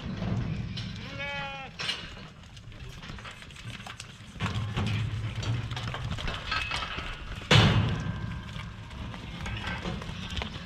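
A sheep bleats once, briefly, about a second in, over steady low background noise from the sheep pen. A loud sudden knock or clatter comes about seven and a half seconds in.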